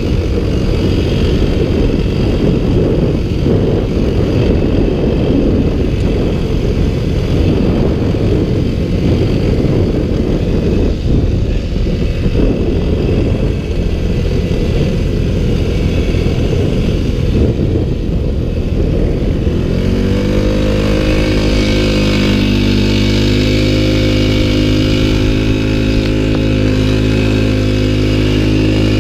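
ATV (quad) engine running under load while riding through snow, rough and uneven at first, then settling into a steady, even engine note about two-thirds of the way through.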